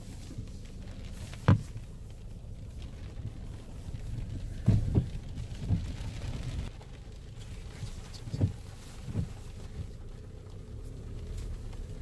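SsangYong Rexton Sports Khan pickup heard from inside the cab, driving slowly over a stony riverbed with a steady low rumble. A handful of sharp thumps and knocks come as it jolts over the stones, the loudest about a second and a half in.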